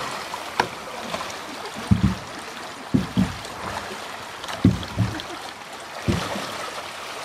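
Water rushing steadily down a narrow concrete irrigation ditch, broken by irregular dull thumps, several in close pairs.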